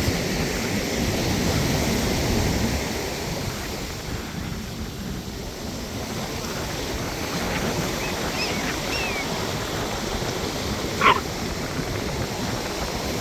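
Ocean surf washing up the beach, a steady rushing noise, with faint high chirps a little past the middle and one short, louder high-pitched call near the end.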